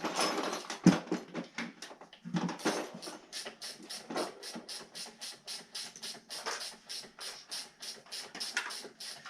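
Rapid, regular scraping or rubbing strokes, about three to four a second, with a sharp knock about a second in.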